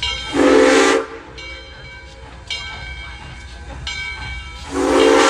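Southern Railway 630's Nathan six-chime steam whistle sounding two short blasts about four seconds apart, each a chord of several tones with steam hiss.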